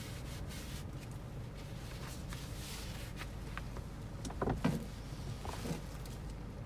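Steady low rumble of road and drivetrain noise inside a Toyota Sienta's cabin on the move, with a few short knocks or rattles about four to five seconds in.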